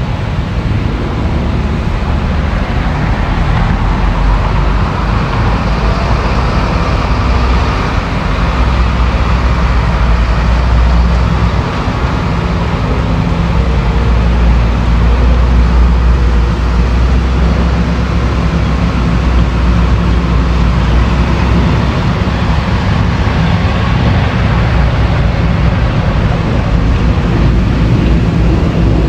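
Caterpillar hydraulic excavator's diesel engine running steadily while the machine works, a continuous deep engine hum.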